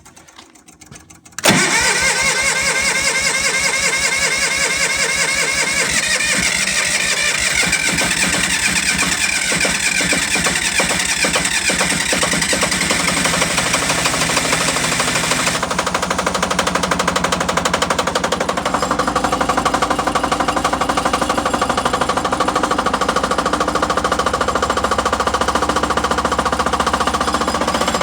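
MEP-002A 5 kW military diesel generator's engine firing up on a cold start after the glow plugs are heated, catching suddenly about a second and a half in, then running steadily with an even, rapid knock.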